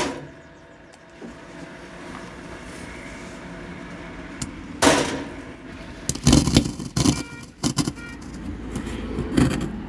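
Amplifier and speaker humming, then loud irregular crackling bursts from the speaker as the volume knob is turned: about five seconds in once, then repeatedly through the second half. The crackle comes from a worn volume potentiometer.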